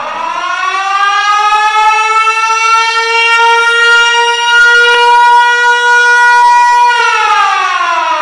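Civil defense siren sounding a wail: its pitch rises over the first two seconds, holds steady for about five seconds, then falls away near the end.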